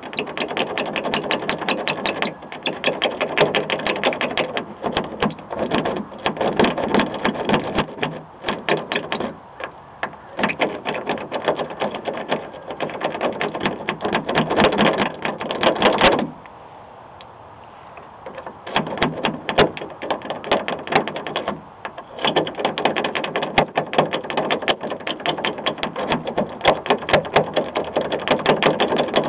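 Homemade jiggler key raked rapidly in an eight-cut Ford door lock against a tension wrench: a dense rattle of fast metallic clicks from the wafers, broken by a few brief pauses and a longer one of about two and a half seconds just past halfway.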